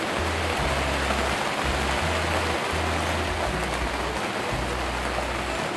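Steady rain falling, an even hiss, with low bass notes of music underneath.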